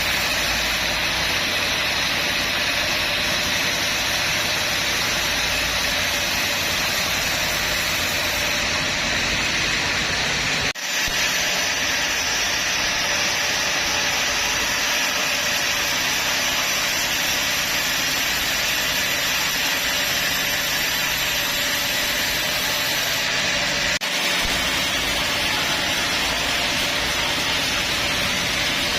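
Band sawmill machinery running, a loud steady mechanical noise, briefly broken twice.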